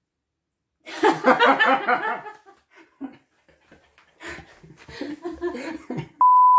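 A burst of laughter in quick pulses, then scattered giggles, and near the end a steady high bleep tone cuts in.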